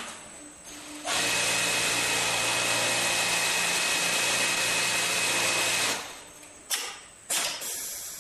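Shirt front creasing press running through a cycle: a loud, steady hiss with a low hum and a faint high whine under it lasts about five seconds and then stops. Two short hissing bursts follow near the end.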